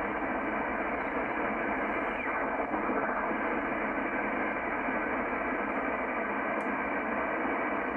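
Shortwave band noise from a Yaesu FTdx10 transceiver's speaker in upper-sideband mode: a steady, narrow-band hiss with a faint steady low tone as the dial is tuned across the utility frequencies just above 15 MHz. No station comes through.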